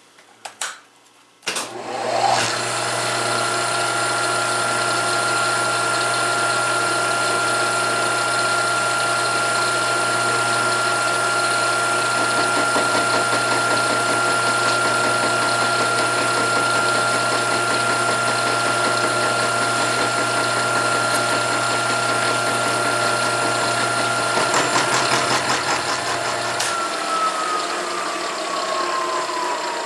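Milling machine starting up and running steadily with a high whine and a low hum while it cuts a small cutout in a metal part. Briefly louder and rattly near the end, then the motor is switched off and its whine falls away as the spindle spins down.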